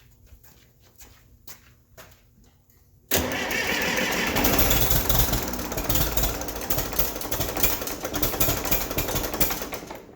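1959 Case 800 diesel tractor engine cranked on its starter, beginning suddenly about three seconds in and turning over for about seven seconds before stopping. It comes close to catching but does not start, which the owner puts down to injectors 1 and 2 opening too early and a need for more priming.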